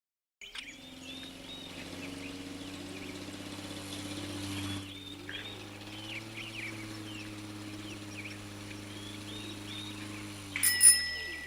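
Birds chirping over a low, steady hum, with a sudden loud, short ringing sound near the end.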